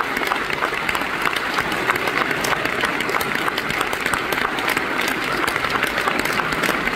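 Large theatre audience applauding steadily, a dense wash of many hands clapping.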